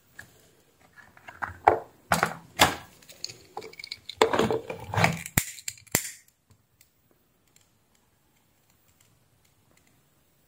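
Clattering, rustling and clicking of small tools and plastic parts handled on a workbench. A sharp click about five and a half seconds in fits a pocket lighter being struck and lit.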